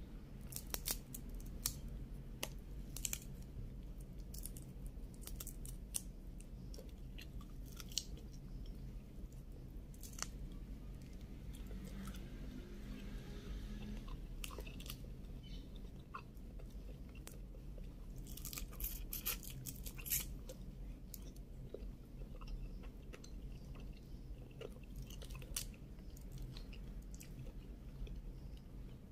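Cooked shell-on shrimp being peeled by hand and eaten: scattered crackling snaps of shell and chewing, in clusters, over a steady low hum.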